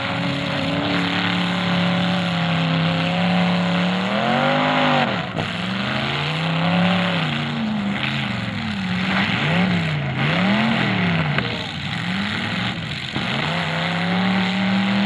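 Demolition derby cars' engines revving hard, the pitch held high and then swinging up and down again and again as the drivers back up and charge, with a couple of short bangs of cars hitting each other.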